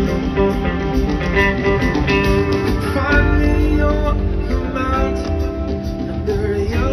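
Rock band playing live through a large outdoor PA, heard from the crowd: guitars over bass and drums, with the bass and drums coming in heavier about three seconds in.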